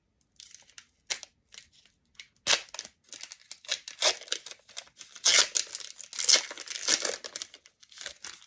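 A foil trading-card pack (Select basketball) being torn open by hand, its wrapper crinkling in a series of irregular crackling tears, the loudest in the middle of the stretch.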